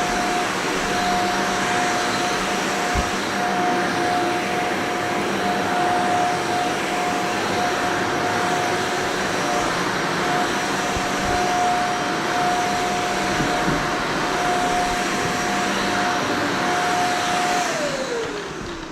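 Shark Vertex upright vacuum cleaner running steadily on carpet with a steady motor whine. It is switched off near the end, and the motor winds down with a falling pitch.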